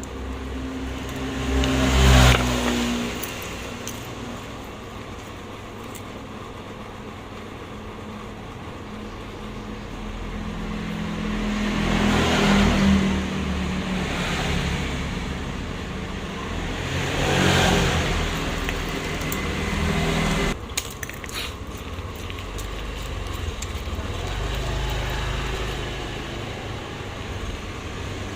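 Road vehicles passing by, three times: each a broad rush that swells and fades over a few seconds, over a steady low hum. A brief cluster of small clicks comes about two-thirds of the way in.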